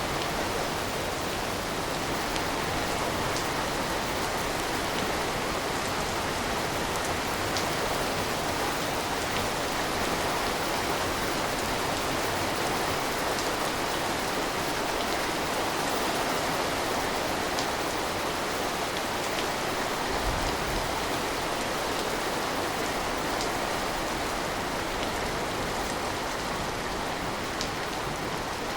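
Steady rain falling, an even hiss with scattered drop ticks, and a brief low thud about twenty seconds in.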